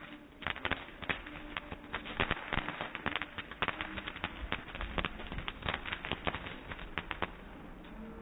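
Fireworks crackling: a dense, irregular run of sharp snaps and pops, several a second.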